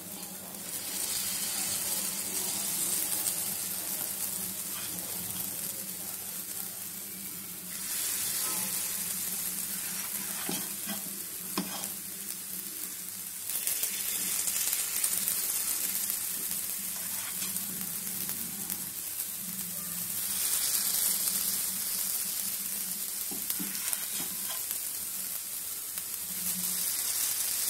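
Batter sizzling in the hot oil of a non-stick paniyaram pan's wells, the hiss swelling again every six seconds or so as each fresh ladle of batter goes in, with a few faint clicks. The sizzle is the sign that the pan is hot enough.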